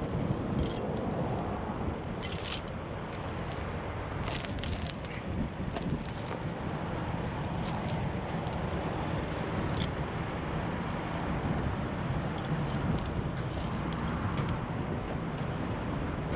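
Steel snow chains for truck tires clinking and jangling as they are handled and fitted, in short scattered metallic clicks over a steady low rumble.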